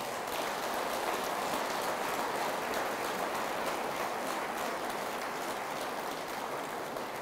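Audience applauding steadily after a punchline, easing off slightly near the end.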